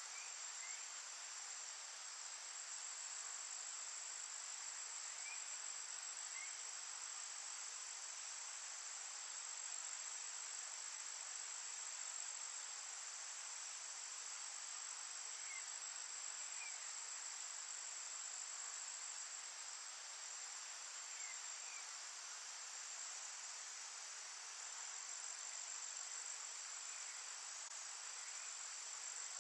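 Steady, high-pitched insect trilling in a forest, unbroken throughout, with faint short paired chirps every five seconds or so.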